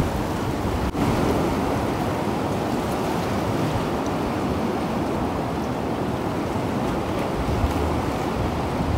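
Sea surf washing around shoreline rocks: a steady rush of water.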